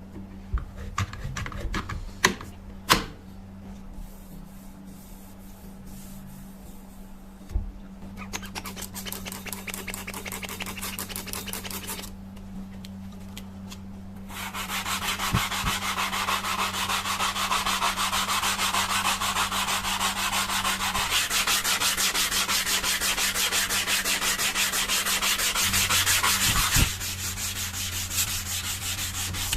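An old knife blade being abraded by hand, rubbed back and forth against an abrasive in quick, even strokes. A short spell of rubbing is followed by a pause, then a longer, louder spell. A few sharp knocks come in the first seconds, and a low hum runs underneath.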